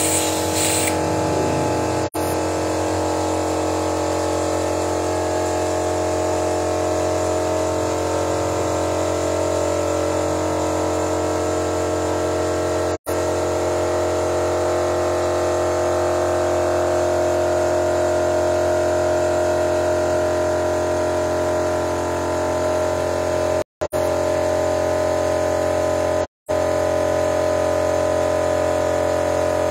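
Suzuki Splash petrol engine idling steadily while engine-cleaning fluid is fed into it from a pressurised canister during a carbon-cleaning treatment. The sound cuts out briefly four times.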